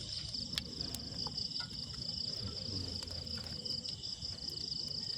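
Insects trilling steadily: a continuous high, rapidly pulsing buzz, with a few faint clicks.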